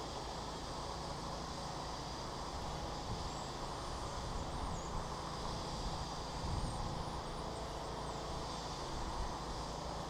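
Steady distant city traffic rumble and hiss. Faint high-pitched bird chirps come in short series from about four seconds in.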